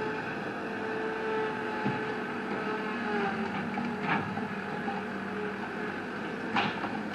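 Engine of construction equipment running steadily at a constant pitch, with a couple of brief knocks, one about four seconds in and a sharper one near the end.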